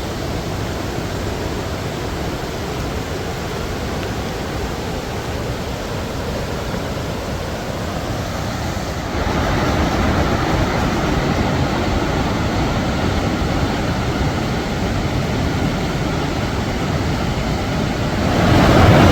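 Khone Phapheng Falls, a huge volume of Mekong River water pouring over rocks: a tremendous, steady roar of rushing water. It steps up louder and brighter about halfway through.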